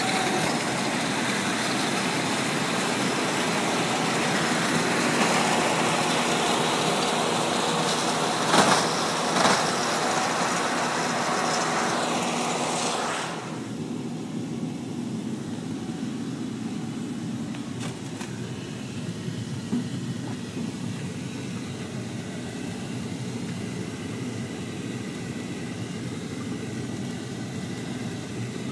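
Vehicle engine running steadily, heard from inside its cab in a hay field, with a wide hiss over it. A couple of sharp knocks come around the middle, and a little past halfway the sound suddenly drops to a quieter, duller running noise.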